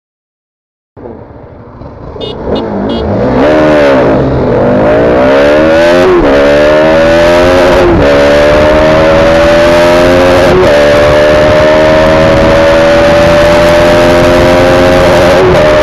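Bajaj Pulsar RS200's single-cylinder engine heard on board, starting about a second in and accelerating hard. Its pitch climbs steadily and dips briefly at each of four upshifts, over a steady rush of wind on the microphone at speed.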